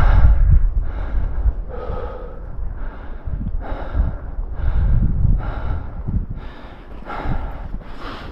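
A man panting hard, about one and a half breaths a second, from the exertion of climbing a steep rocky path with heavy gear.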